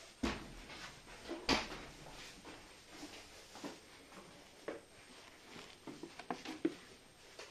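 Irregular knocks and thumps of objects being handled and set down, the loudest about a second and a half in.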